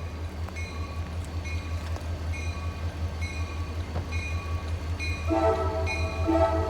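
CSX diesel freight locomotive running with a steady low engine rumble while a bell rings about twice a second; about five seconds in its air horn sounds a loud multi-note chord.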